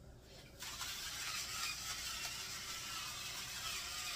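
Battery-powered electric seasoning grinder switched on about half a second in and running steadily, its small motor grinding seasoning in a continuous even grinding noise.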